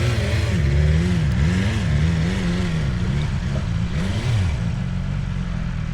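Motorcycle engine through an Akrapovic exhaust, its revs rising and falling repeatedly, then dropping and settling to a steady note a little past four seconds in.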